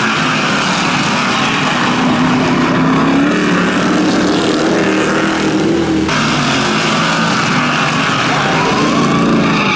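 Several short-track stock cars racing together, their engines running hard through the turn in a steady mix of engine notes. The sound changes abruptly about six seconds in.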